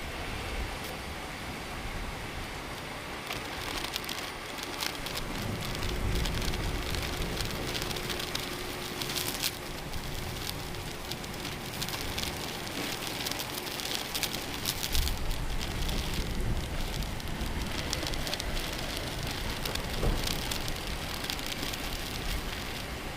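Heavy rain pattering and crackling steadily, with low rolls of thunder swelling about five seconds in and again about fifteen seconds in.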